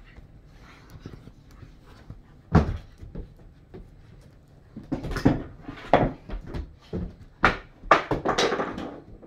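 Great Dane puppy romping with its toys: one sharp thump about two and a half seconds in, then a quick run of bumps and knocks from about five seconds on.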